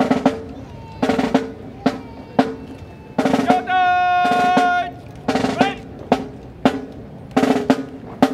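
Marching snare drums playing a drill cadence of short rolls and sharp accented hits, with one long held note about four seconds in.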